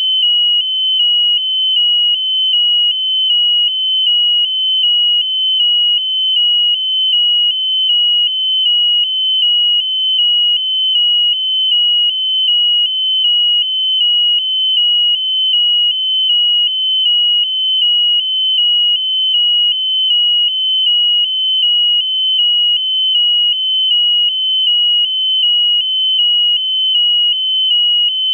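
Piezo buzzer on a high-altitude balloon payload sounding a continuous high-pitched electronic tone that pulses evenly about one and a half times a second.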